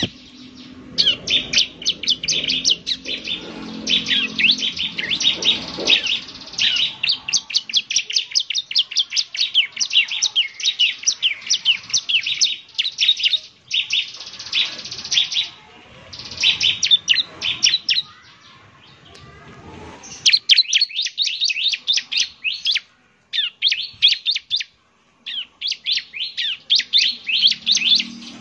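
Ciblek (bar-winged prinia) singing a lure song: rapid, high chirping phrases of a second or two, repeated with short pauses. It is the kind of recording played to provoke other ciblek into singing.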